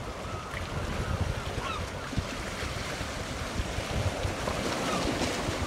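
Wind buffeting the microphone in uneven gusts over a steady wash of sea, with short, high bird calls several times.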